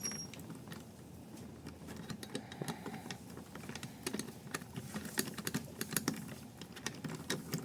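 Irregular small clicks and taps of an Allen key and metal parts being handled while unscrewing the charging handle from an airsoft SCAR's upper receiver.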